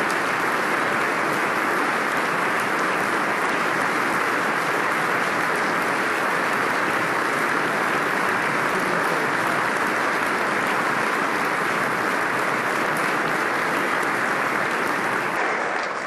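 Sustained applause from a large crowd, steady and dense, dying away right at the end.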